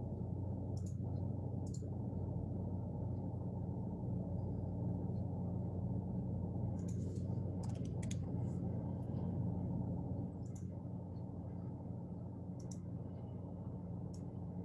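Steady low hum picked up by an open microphone, with a few faint, scattered clicks.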